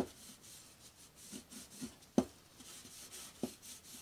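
Wiping freshly applied stain off a wooden board in repeated rubbing strokes, with a few sharp knocks, the loudest about two seconds in.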